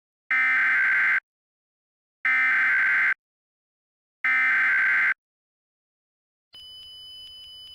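Emergency Alert System SAME header: three identical bursts of warbling digital data tones, each just under a second long and two seconds apart, the header sent three times. A faint steady high tone comes in near the end.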